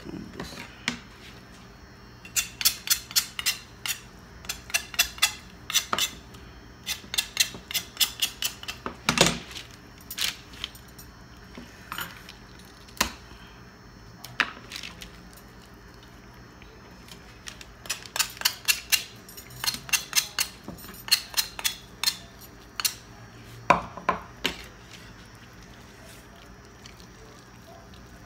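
Thin metal bangles clinking against each other in quick runs of small metallic clicks while the hands twist and pull meat off a turkey wing bone. Two long spells of clinking, with a few stray clicks and a quieter stretch between them.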